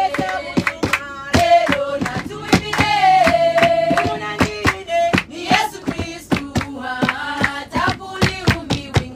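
A group of women singing together unaccompanied, with steady rhythmic hand clapping under the song.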